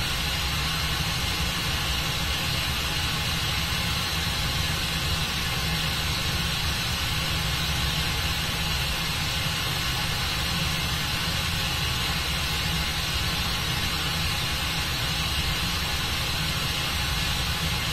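Air blowing steadily up through a fluidized bed of white powder in a clear column: a steady rushing hiss over a low rumble.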